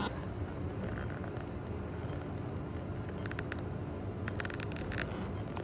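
Cabin noise of a driverless bus under way: a steady low rumble from the drive and the road with a faint hum. Two clusters of short light clicks come about three seconds in and again around four and a half seconds.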